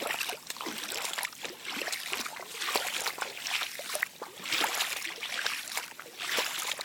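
Feet wading through shallow floodwater, splashing and sloshing in repeated surges step by step.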